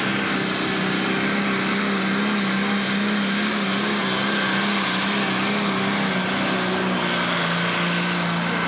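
Turbocharged diesel engine of a Pro Stock pulling tractor running flat out under load as it pulls the sled. It is a steady, loud drone whose pitch dips slightly about seven seconds in.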